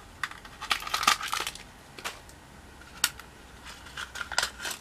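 Handling of a small plastic toy cat carrier and its packaging: scattered sharp plastic clicks, a brief crackling rustle about a second in, then single clicks and a few more clicks near the end.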